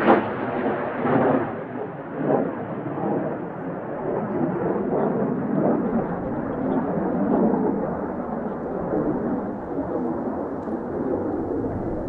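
Mitsubishi F-2B fighter's single F110 turbofan rumbling with a crackling, irregular roar as the jet passes and climbs away. Its higher tones fade over the first few seconds as it recedes.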